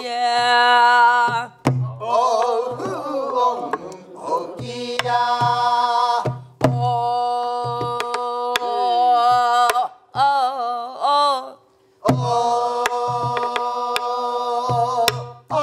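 A woman singing a Namdo folk song in the held, wavering pansori style, keeping time on a Korean buk barrel drum with a stick: deep thumps on the drumhead and sharp clicks on the frame between her sung phrases. The singing breaks off briefly twice, about ten and twelve seconds in.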